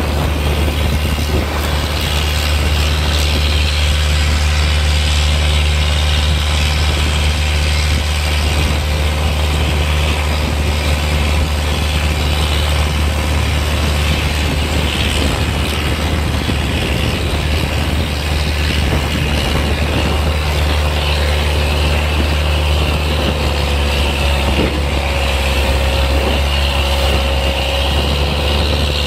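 A boat engine running steadily at speed, a constant low drone, with water rushing and splashing past the hull.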